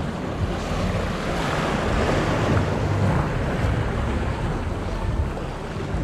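Surf washing onto the beach, swelling about two seconds in, over the low rumble of wind buffeting the microphone.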